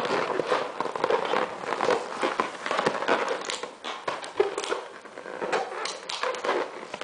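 Rubber party balloons being handled and twisted at the knot to open them, with irregular crackling and rubbing squeaks.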